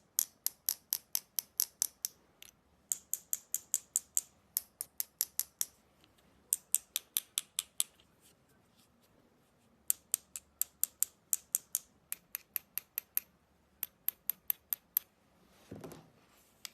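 Detented adjustment knob of a rifle scope being turned, giving crisp clicks about six a second in several runs with short pauses between. A soft bump comes near the end.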